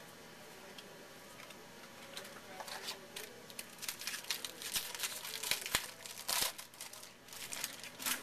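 Plastic-foil wrapper of a Topps football jumbo card pack crinkling and tearing as it is opened by hand. It starts about two seconds in as a run of crackles and rustles and is busiest in the middle.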